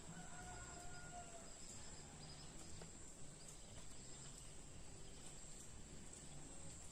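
Faint background noise with a steady high whine. Near the start there is a faint, distant steady tone lasting about a second.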